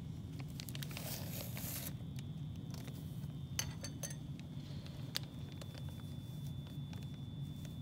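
Plastic zip-top bag being handled: a brief crinkling rustle, then a few small clicks and clinks, over a steady low hum and a faint steady high whine.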